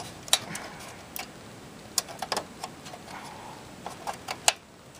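Irregular sharp clicks and taps from hands working the plastic and metal latches inside an old desktop computer.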